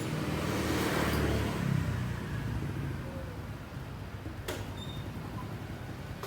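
Motorbike engine running with a low, steady rumble, a little louder over the first second and a half, and a single sharp click about four and a half seconds in.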